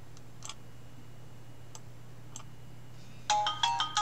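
Clicking at a computer: a few faint single clicks, then a quick run of about six sharp clicks with a short ringing after them near the end, over a steady low hum.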